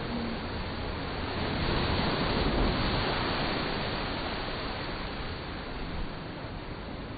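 Rushing water on a big open tube water slide as an inflatable ring rides down it, a steady rush that swells about two to three seconds in and then fades.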